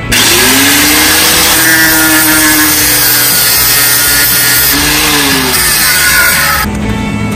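Angle grinder grinding on a steel alternator mounting bracket. It starts abruptly and spins up, runs steadily with its pitch wavering briefly about five seconds in as it bites, and cuts off shortly before the end.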